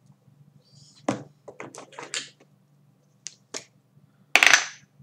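A person's sharp breath, loudest near the end, after a quick run of small clicks and ticks about a second in, over a faint steady low hum.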